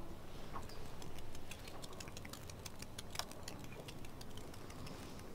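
Faint, quick ticking of a countdown timer running, several light ticks a second, over the low hum of a quiet room.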